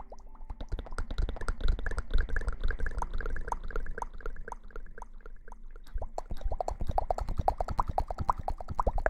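Close-up wet lather crackling and squishing, as of shampoo foam being worked, made up of many rapid small pops. It eases off for a couple of seconds in the middle, then picks up again.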